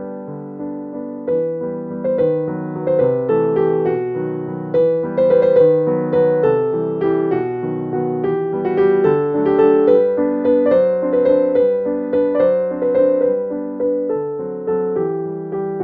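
Background piano music: a gentle keyboard melody of struck notes, each fading after it is played, with a steady flow of several notes a second.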